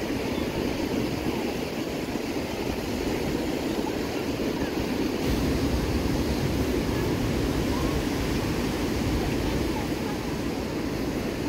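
Ocean surf breaking and washing up on a sandy beach, a steady rush, with a low wind rumble on the microphone that grows stronger about halfway through.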